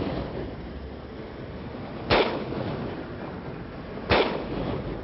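Two sharp bangs, about two seconds apart, each dying away over a fraction of a second, over a steady low hiss.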